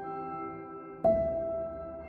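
Ambient new-age background music: sustained ringing tones that slowly fade, with a new note struck about a second in.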